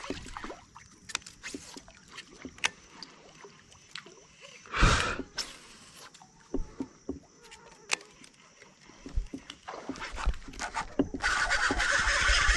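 Kayak sounds: scattered light knocks and bumps on the plastic hull, a short louder rush of noise about five seconds in, and steady water swishing near the end as paddling begins.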